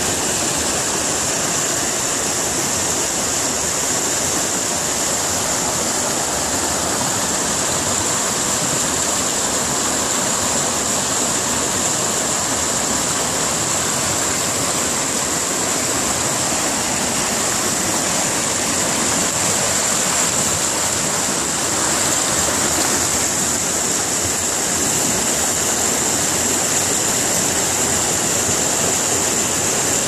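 Fast mountain river rushing and splashing over boulders and stones: a steady, even rush of whitewater.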